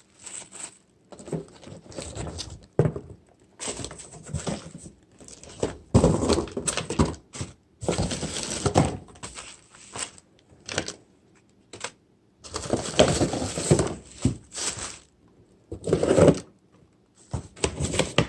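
Paper and gift wrapping rustling and crinkling in irregular bursts as wrapped items are pulled out of a gift box by hand, with light knocks and clicks as things are handled and set down.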